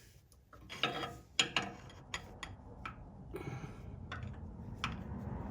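Open-end wrench clicking and scraping against a spark plug as the plug is worked a little at a time into the flattened threads of a 1931 Ford Model A cylinder head. It makes a string of separate metallic clicks and short scrapes at uneven intervals.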